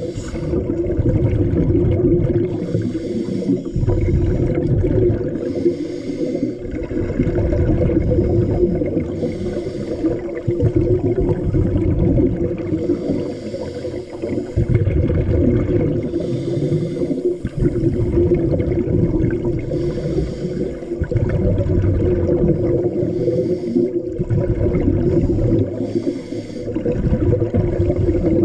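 Scuba diver breathing through a regulator underwater: a hissing inhalation alternates with a low bubbling exhalation, about one breath every three to four seconds.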